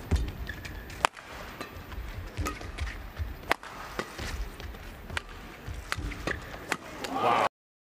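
Badminton rally: rackets striking the shuttlecock in sharp cracks about once a second, with a brief shoe squeak on the court early on. Near the end the sound swells, then cuts off abruptly.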